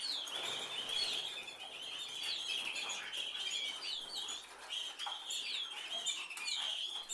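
A flock of small birds chirping together: many short, overlapping chirps and quick rising-and-falling whistles.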